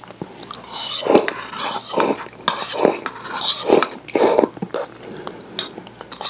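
Egg soup being sipped and slurped straight from the bowl, close to the microphone: a series of short slurps and swallows roughly a second apart.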